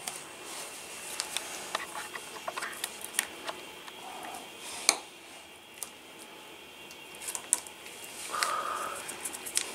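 Scattered light metallic clicks of a hemostat working to grip and pull porcupine quills from a dog's muzzle. The loudest click comes about five seconds in, over a low room hiss.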